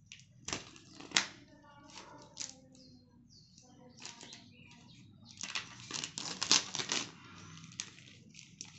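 Unboxing noises: a knife blade scraping and slitting the seal on a cardboard box, with the box and its packaging handled. Sharp scraping clicks come about half a second and a second in. A burst of scratchy rustling of paper and plastic follows between about five and a half and seven seconds in.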